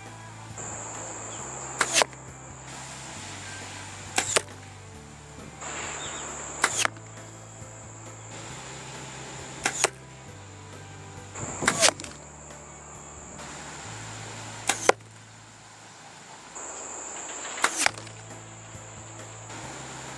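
Arrows with different fletchings and vanes shot one after another from a bow, a sharp double crack about every two to three seconds, seven shots in all.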